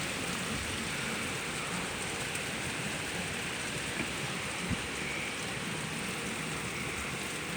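Steady hiss of heavy, wind-driven rain from a hurricane rain band, with a couple of faint taps about halfway through.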